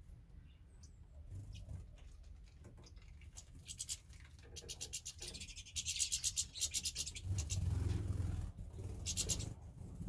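Small songbirds in an aviary: bursts of rapid, high-pitched rattling chatter, densest about five to seven seconds in and again near nine seconds, with a low rumble around eight seconds in.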